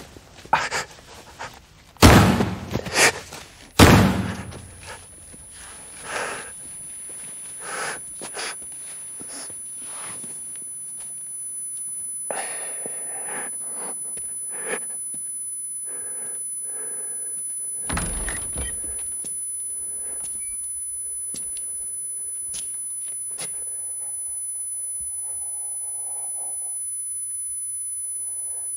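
Three loud gunshots about two seconds apart in the first few seconds, then a high, thin, steady ringing tone that more thin tones join, over a low steady drone with faint scattered clicks and one heavier thud about eighteen seconds in.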